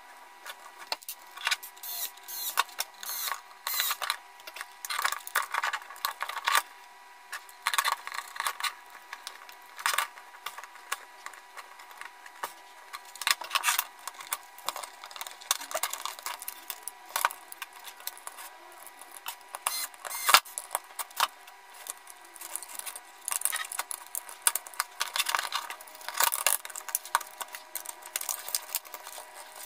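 Plastic parts of an LED solar spotlight and its solar panel being handled and fitted together by hand: an uneven run of light clicks, taps and rattles as pieces are pressed and snapped into place and set down on a wooden table.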